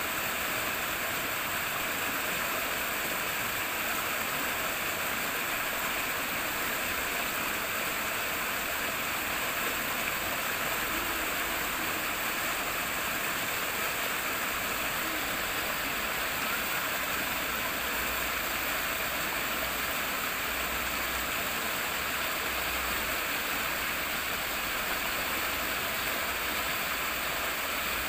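Running water rippling and rushing steadily, like a stream, an even continuous sound with occasional faint low rumbles.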